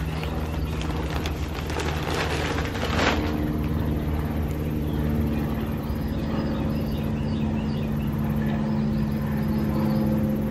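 Potting soil poured from a bag into a large planter, a rushing hiss that stops about three seconds in, over a steady low mechanical hum that runs throughout.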